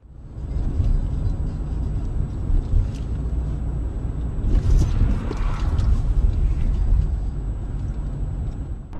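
Steady low road and engine rumble of a moving car, heard from inside the cabin through a dashcam, with a louder hissing swell about halfway through.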